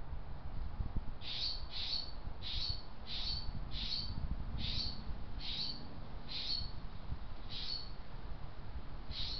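A small bird chirping repeatedly: about ten short, high chirps, roughly one every half second to second, starting about a second in, over a low steady rumble.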